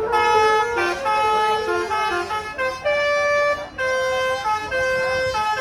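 Basuri telolet bus horn playing a tune: a run of loud, steady horn notes stepping up and down in pitch, some held for over half a second.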